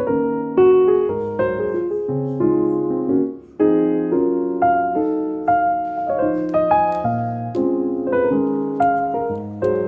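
Background piano music: chords and notes played at a gentle pace, with a brief pause about three and a half seconds in.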